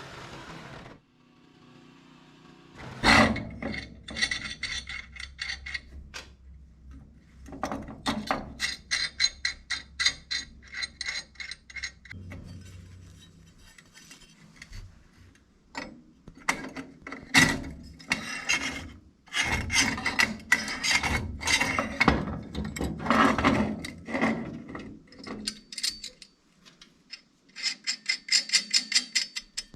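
Hand tool being worked in about five bursts of quick, rasping strokes, each burst lasting a few seconds, with short pauses between.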